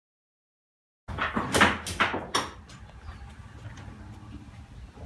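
Silence, then about a second in a quick run of five or so knocks and clunks inside an enclosed metal car-hauler trailer, followed by a low steady rumble.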